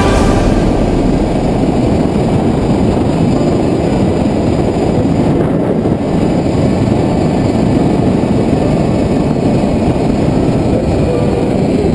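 Steady, loud, low rushing noise of wind buffeting the microphone during a fast zip-line descent.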